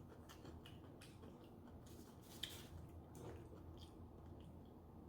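Faint close-miked chewing of a sushi roll: soft scattered mouth clicks and smacks, with one sharper click about two and a half seconds in.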